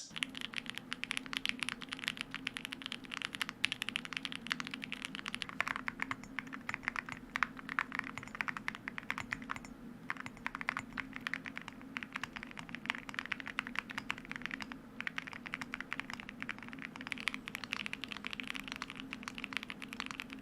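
Fast typing on a mechanical keyboard in four stretches of about five seconds, with a short pause between each. Each stretch uses a different keycap material, in this order: ABS, metal, ceramic, then PBT.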